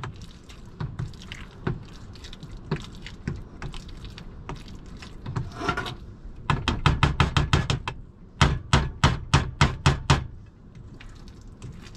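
Potato masher pounding bananas in a bowl. There are scattered light knocks at first, then two quick runs of strong thumps past the halfway point: about eight a second for a second and a half, then about four a second for two seconds.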